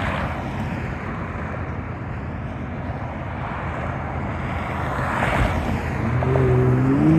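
Steady road-traffic noise with wind on the microphone. About six seconds in, a vehicle engine's hum comes in at a steady pitch and rises slightly.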